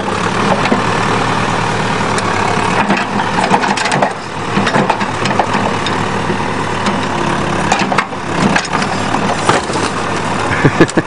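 Backhoe engine running steadily while its bucket crushes and tears into a van's body, with repeated crunching and cracking.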